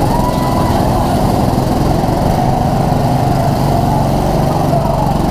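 Small petrol engines of several go-karts running steadily as the karts pull away from the pit lane.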